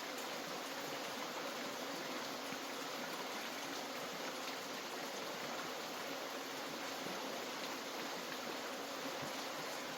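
Many bees buzzing together in a steady, unbroken hum.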